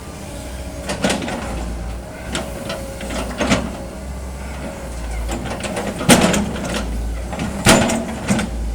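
Hitachi excavator's diesel engine running steadily, with four sharp knocks spaced one to three seconds apart, the loudest about six seconds in and another shortly after: logs knocking together as they are stacked.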